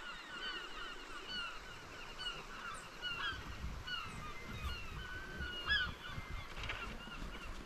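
A flock of geese honking, many short calls overlapping in quick succession, with one louder call about three-quarters of the way through.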